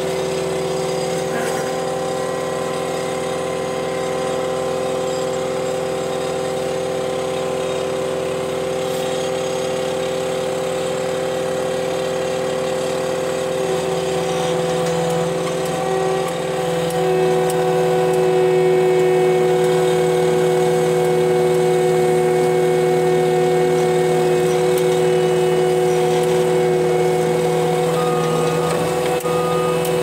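Cat 289D3 skid steer's diesel engine running steadily, heard from inside the cab. About halfway through, the engine note shifts and gets somewhat louder.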